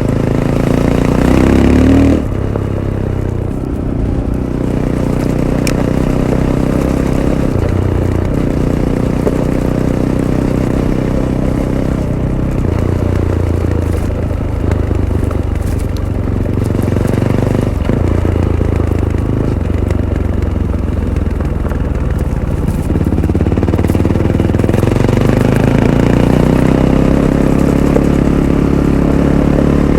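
Fantic Caballero 500's single-cylinder engine through its stock Arrow exhaust, rising in pitch and then dropping sharply as the throttle closes about two seconds in. It runs at a steady part-throttle pitch with small changes through the middle, then climbs gradually over the last several seconds, with some clatter from the bike on rough ground.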